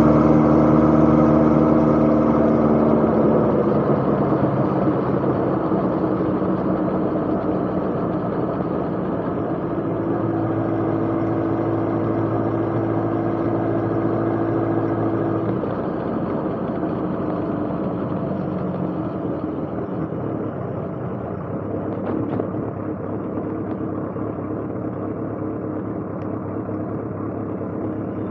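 Motorcycle engine running steadily, its note holding for several seconds at a time and shifting a few times, the whole sound slowly growing duller and quieter.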